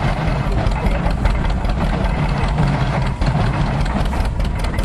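Old farm tractor engine running steadily while belt-driving an antique stationary baler packing straw.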